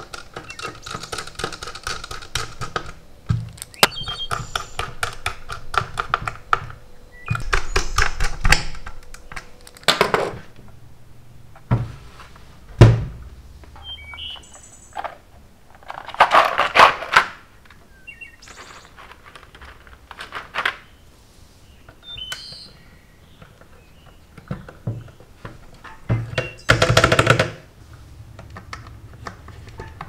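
Irregular clicks, taps and plastic clattering from hands assembling a metal-cased mechanical keyboard: a screwdriver working among the mounted switches, the clear plastic keycap box being handled, and keycaps pressed onto the switches. A few louder clattering bursts stand out among the lighter ticks.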